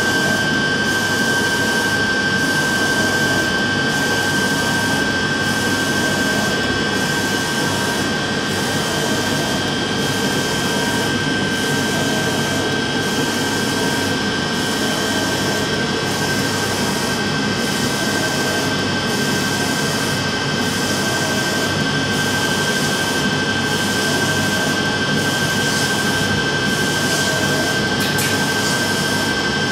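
UV flatbed printer running: a steady whir of fans with a steady high whine, and a slight regular change about every second and a half as the print carriage sweeps across the bed.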